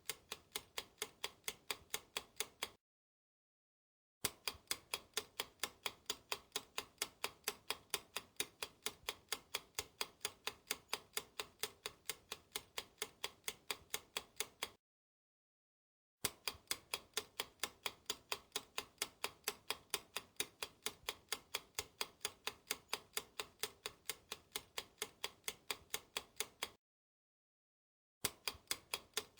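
Clock-ticking sound effect, an even, rapid tick running in stretches of about ten to twelve seconds. It cuts to dead silence three times, for about a second and a half each, then starts again.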